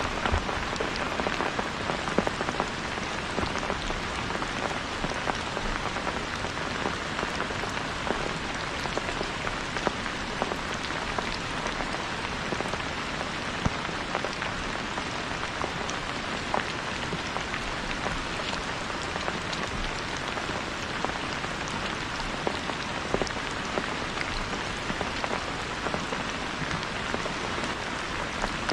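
Steady rain falling, a continuous hiss dotted with many sharp individual drop ticks.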